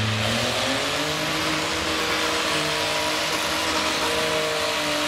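Farmall tractor engine running hard under load as it pulls a weight-transfer sled, holding a steady pitch. A deep low hum dies away under a second in.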